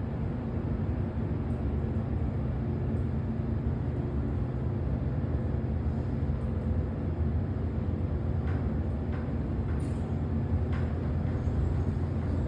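Original 2002 Minnesota Elevator hydraulic elevator car descending slowly, heard from inside the cab as a steady low hum and rumble. A few faint clicks come near the end.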